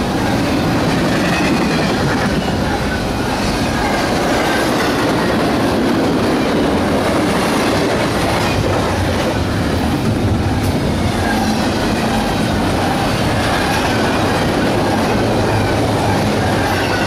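CSX double-stack intermodal freight train's well cars rolling past at speed, with a steady loud rumble and clatter of steel wheels on the rails.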